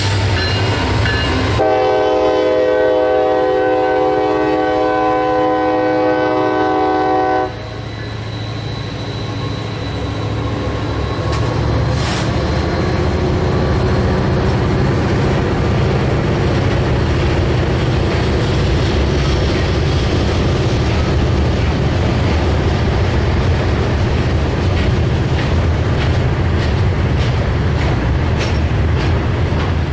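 Diesel locomotive's multi-note air horn sounding one long blast of about six seconds, which cuts off sharply. The train then rolls by with a loud, steady rumble of engine and wheels, clacking over the rail joints.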